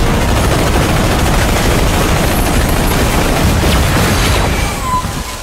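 Loud, dense crackling and booming sound effect laid over the video, with a couple of short falling whistles near the end.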